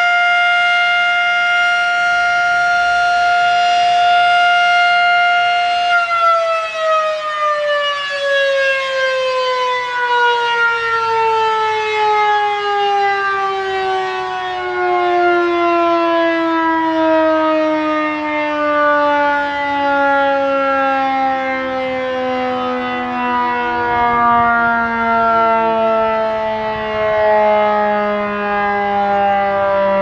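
Model 5 outdoor warning siren sounding a steady tone. About six seconds in it is switched off and winds down, its pitch falling slowly and smoothly as the rotor coasts to a stop at the end of the test.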